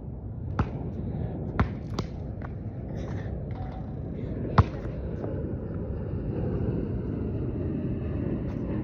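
Basketball bouncing on a hard court: about five irregular thuds, the loudest about four and a half seconds in, over a steady low background rumble.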